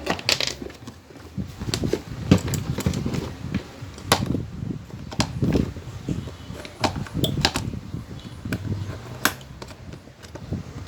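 Irregular clicks, taps and knocks of an electric fan's plastic and metal parts being handled and taken apart by hand.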